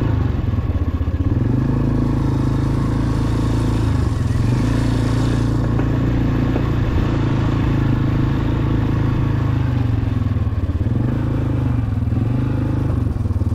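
Small motorcycle engine running as the bike is ridden, its note easing off and picking up again a few times with the throttle.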